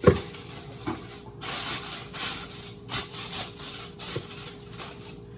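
A sharp knock, then a run of rough scraping strokes, each about half a second long, over a faint steady hum.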